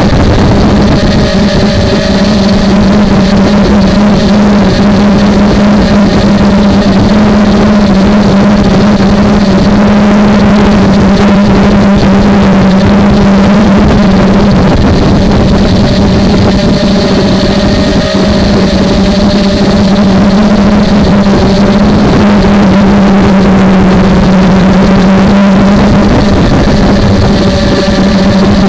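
Small 250-size FPV quadcopter's brushless motors and propellers, heard from the onboard camera: a loud, steady buzz whose pitch wavers slightly with throttle. The motors are old, which the pilot blames for the poor audio.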